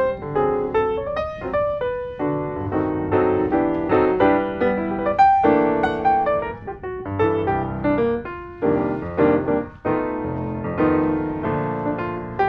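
Background music: piano playing a melody of quick, short notes with chords.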